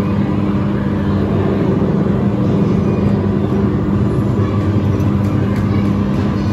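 Ride car running steadily along its elevated track: a constant motor hum over a low rumble.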